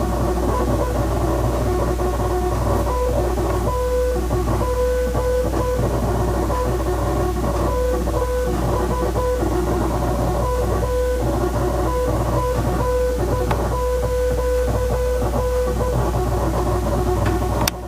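Music with guitar over a dense backing, through which a steady beep-like tone switches on and off in short and long stretches, like Morse code dots and dashes. The uploader reads this tone as a hidden Morse code message. The sound drops away suddenly near the end.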